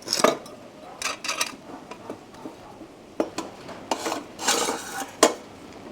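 Steel square tube and bolted fittings being handled: about half a dozen light metal clinks and knocks at irregular moments, each ringing briefly.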